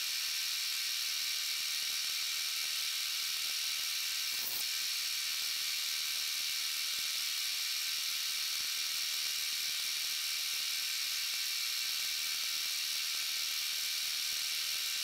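Milling machine spindle turning an end mill at about 750 RPM as it cuts a slot through a 303 stainless steel block, a steady high whirring hiss with one faint tick about four and a half seconds in.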